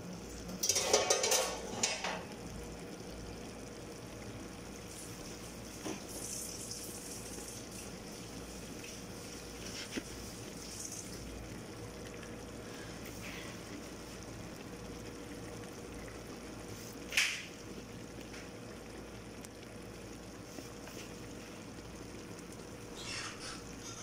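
Soft handling sounds as fried vegetable slices are laid by hand into a stainless steel pot, over a steady faint hum. A loud rustle comes about a second in, and a short sharp sound around seventeen seconds.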